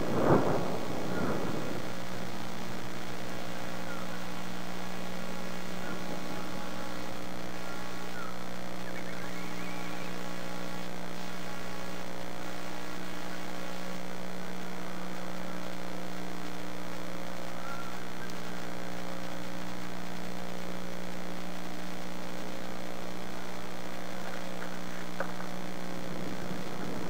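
Steady electrical mains hum on the eagle nest camera's audio feed: several low steady tones at an even level. A brief rush of noise fills the first second or two, and faint short chirps come now and then.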